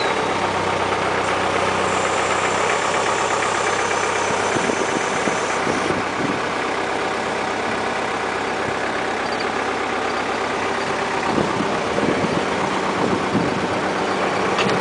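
Engine running steadily, driving the hydraulics of a soil-sampling auger, with a few short knocks near the end.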